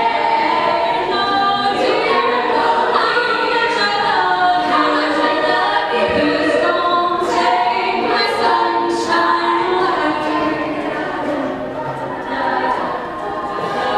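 A small group of voices singing a cappella in harmony, holding and moving between sung notes.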